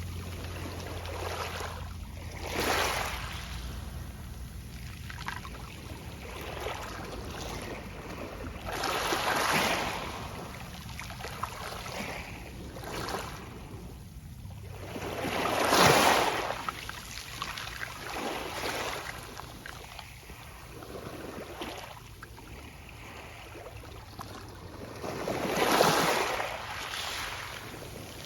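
Small sea waves washing onto a pebble beach, each wave swelling and fading with a soft rustle of pebbles, about six times, the loudest two near the middle and near the end.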